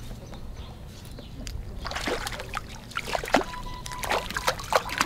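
A hooked crappie splashing at the water's surface beside a kayak as it is reeled in: a quick, irregular run of sharp splashes starting about two seconds in.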